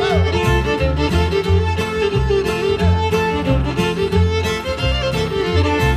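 Old-time string band music with the fiddle leading, sliding between notes, over a steady bass line on the beat.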